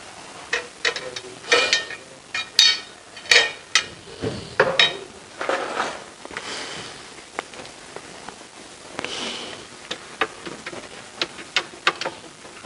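Metal truss poles of a Dobsonian telescope being handled and fitted into its wooden mirror box: irregular knocks, clicks and scraping, busiest in the first few seconds and then thinning to scattered taps.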